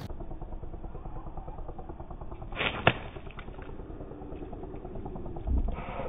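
Faint low noise of wind on the microphone, with two sharp clicks a fraction of a second apart about halfway through.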